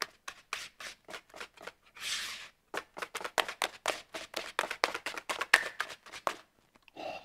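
Wire whisk beating a thick pudding and cream cheese mixture in a plastic bowl: quick, rhythmic clicking strokes, about four or five a second, with a short hiss about two seconds in. The mixture is thick and heavy and hard to whisk. The strokes stop shortly before the end.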